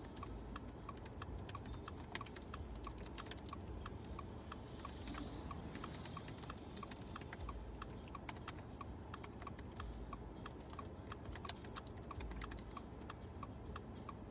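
Quick, irregular clicks of fingers typing and tapping on a phone, over a regular faint ticking and a low rumble.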